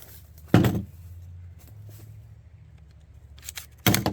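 A single gunshot from a Kel-Tec Sub-2000 carbine firing a .40 full metal jacket round at a hanging steel concrete saw blade, about half a second in; the hit leaves a dent in the blade. Near the end come several loud clattering knocks.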